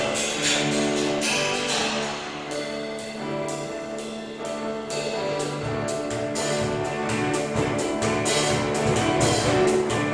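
Instrumental background music with sustained tones over a regular beat.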